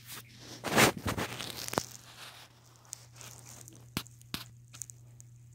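Rustling and handling noise against bedding and the phone: a loud rustle about a second in, then a few sharp clicks.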